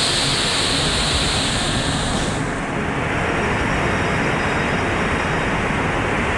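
River in flood, fast muddy water rushing and churning: a loud, steady roar of torrential water. Its high hiss drops away a little over two seconds in.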